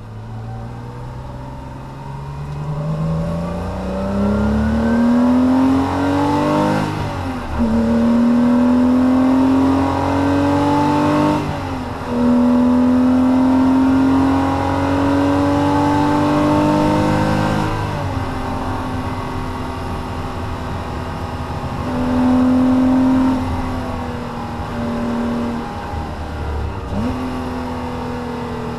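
Porsche Cayman S (987.2) 3.4-litre flat-six heard from inside the cabin, accelerating hard through the gears: the engine note rises with the revs and drops at three upshifts, about seven, eleven and eighteen seconds in. After the last shift it runs steadier at part throttle, with a short burst of throttle a little past the twenty-second mark.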